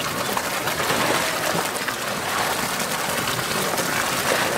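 Steady rush and splash of pool water as two polar bears wrestle and roll in it.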